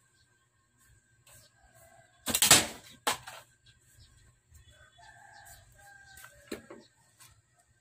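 Chickens: a sudden loud flurry about two seconds in and a shorter one just after, then faint short clucks.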